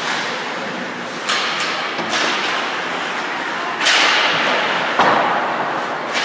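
Ice hockey play heard from rinkside: skate blades scraping and carving the ice, broken by several sharp hits of sticks and puck, the loudest about two thirds of the way through.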